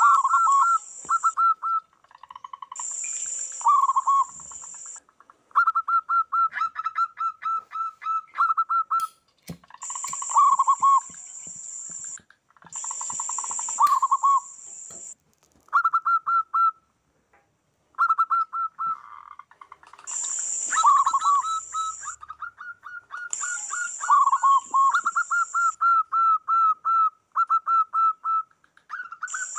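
Several zebra doves calling over and across one another, each call a fast run of short repeated coos that ends on lower, rolling notes. A high buzzing in bursts of about a second comes and goes every few seconds.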